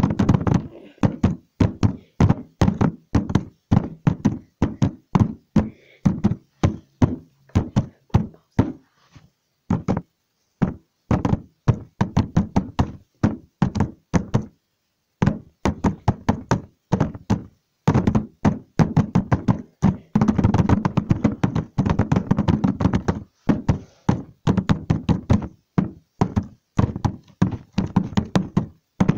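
Rapid, irregular knocking or tapping, several knocks a second, stopping briefly about halfway through.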